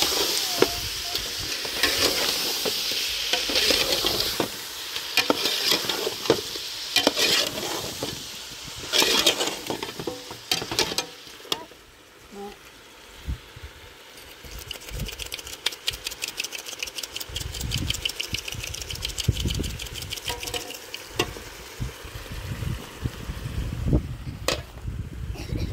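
Food sizzling in a pan while it is stirred, with a metal utensil clicking and scraping against the pan. About halfway through the sizzle dies down, and a quick run of light ticks follows, with a low rumble near the end.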